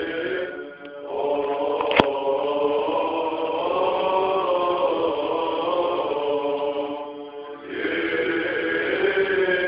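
Greek Orthodox Byzantine chant sung by men's voices in long held phrases, breaking briefly about a second in and again about seven seconds in. A single sharp click sounds about two seconds in.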